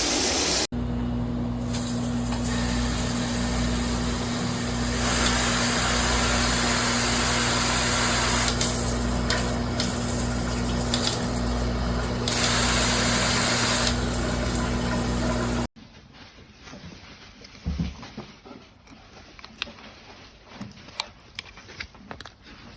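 HOPOPRO 5-mode shower head spraying water steadily, with a steady low hum underneath. The spray cuts off abruptly about sixteen seconds in, leaving quiet with a few small clicks and taps.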